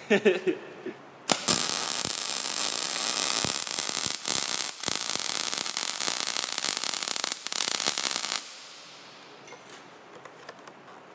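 Wire-feed MIG welder arc crackling steadily as a bolt is welded onto a steel I-beam. It strikes about a second in, runs for about seven seconds with a few very short breaks, then stops.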